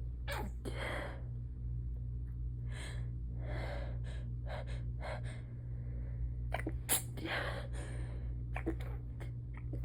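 A rapid fit of stifled sneezes, one after another. Each sneeze is a short, sharp, held-back burst, with quick hissing breaths between them, and the sharpest comes about seven seconds in.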